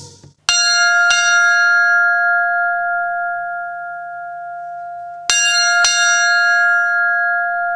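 Small monastery bell in a wooden bell frame, rung by rope: two strokes in quick succession about half a second in, then two more about five seconds in. Each stroke leaves a clear, steady tone that rings on and slowly fades.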